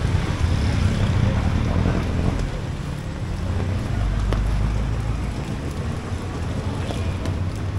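Steady outdoor street noise: a low, fluctuating rumble under an even hiss, with a few faint clicks.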